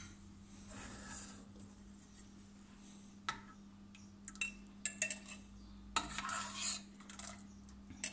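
A metal ladle clinking and scraping against a glass jar and the rim of a steel pot as hot jelly is ladled into the jar. There are scattered clinks, mostly in the second half, over a steady low hum.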